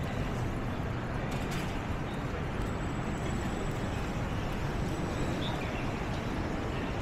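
Steady outdoor city street ambience: an even background hum, strongest in the low range, with a faint click about a second and a half in.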